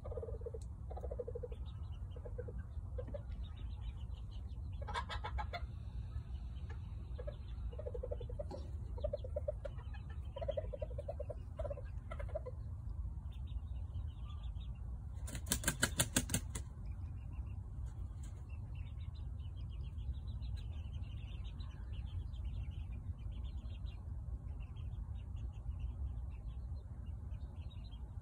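Chickens clucking in short low notes, in two spells. About halfway there is a loud burst of wing flapping lasting about a second, and faint high chirps come and go after it.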